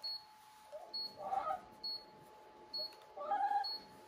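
A dog whining twice in short, wavering cries, with a short high electronic beep repeating about once a second behind it.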